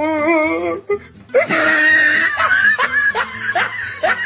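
High-pitched laughter: a wavering drawn-out vocal note at the start, then after a short pause a run of quick, shrill rising laughs.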